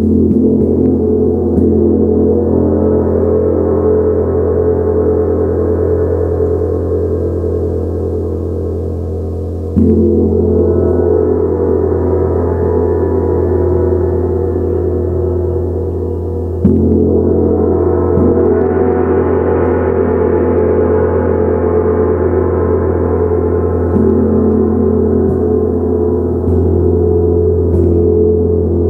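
A 70 cm Tibetan gong played with a soft mallet, ringing on in a long sustained wash of many overtones. Fresh strikes come near the start, about ten seconds in and about seventeen seconds in, with lighter ones near the end; after each strike the higher shimmer swells and then fades back under a steady deep hum.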